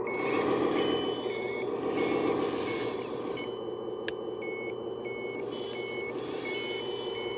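Heavy-equipment reversing alarm beeping at a regular pace over the steady rumble of a diesel-type engine, with one sharp click about four seconds in.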